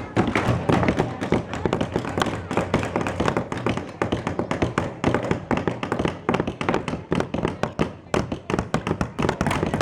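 Several hammers tapping nails into wooden kit pieces: a rapid, irregular stream of overlapping strikes.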